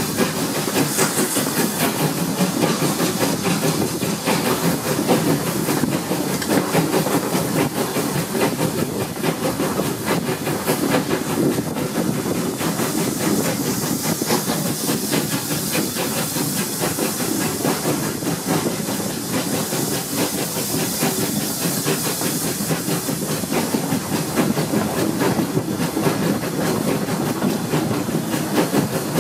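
Steam locomotive working its train, heard close from the carriage just behind it: continuous hissing steam and exhaust mixed with the run of wheels on the rails.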